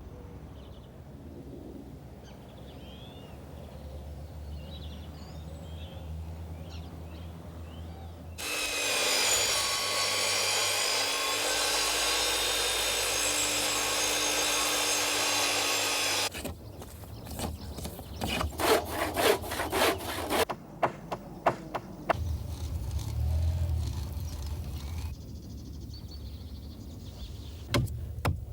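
Timber being sawn. A loud steady sawing run lasts about eight seconds in the middle, followed by a quick series of sharp strokes.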